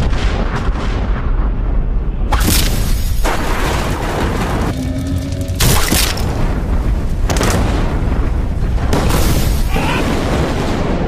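Loud, dense noise soundtrack: a constant deep rumbling drone with several bursts of harsh crashing noise, and a brief quieter stretch about five seconds in where a few faint held tones show through.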